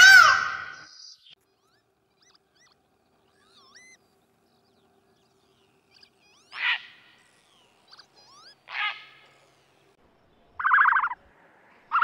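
Indian peafowl (peacock) giving one loud call that arches up and down in pitch. Then faint small-bird chirps, two short harsh bird calls, and near the end two short rattling bursts like a turkey gobbling.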